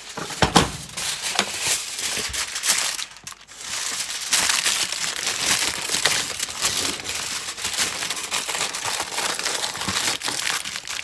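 Aluminium foil crinkling and crackling as it is handled and pressed over a baking dish to cover it, with a brief lull about three seconds in.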